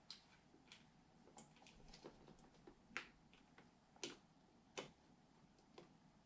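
Faint, irregular clicks and taps of small computer hardware parts being handled and fitted into a PC case, with a few sharper clicks near the middle.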